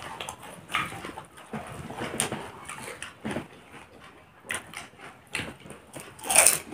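Panipuri being eaten: crisp puri shells cracking as they are broken open and crunched in the mouth, in short irregular crackles, with a louder one about six seconds in.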